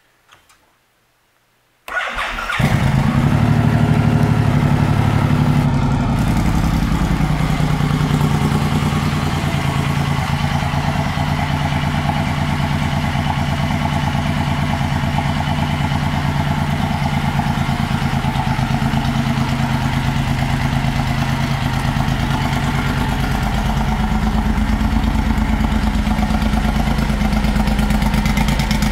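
2006 Suzuki Boulevard M109R's V-twin engine, fitted with aftermarket Cobra exhaust pipes, started about two seconds in: a brief crank, then it catches and idles steadily.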